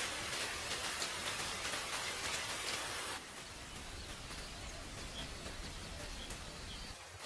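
Rain falling steadily: a dense hiss dotted with fine drop ticks. It drops abruptly in level and brightness about three seconds in.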